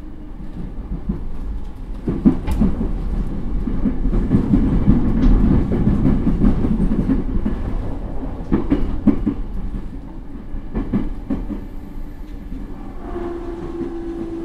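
JR E231 series commuter train heard from inside the car, running slowly into its terminal station: a low rumble with a quick run of wheel clicks and clatter over rail joints and points. The clatter dies down after about eleven seconds, and a steady hum begins near the end.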